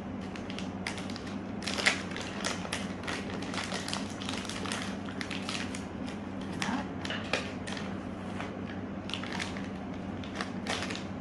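Plastic zipper bag of modelling clay crinkling and crackling as it is handled, in irregular rustles, with a low steady hum underneath.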